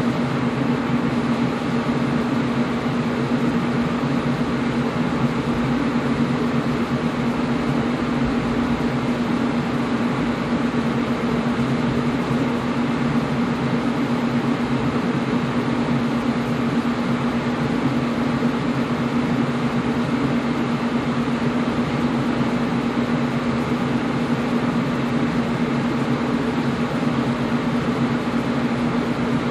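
Air conditioner running steadily: an even rushing noise with a constant low hum underneath.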